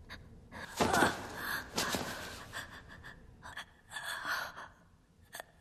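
A boy's sharp, shaky gasping breaths as he begins to cry, several in a row with pauses between them.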